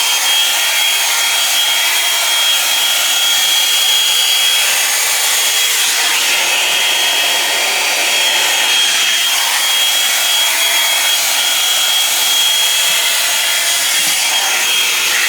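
Drybar Double Shot blow-dryer brush running at a steady speed: rushing hot air with a constant high whine from its fan motor.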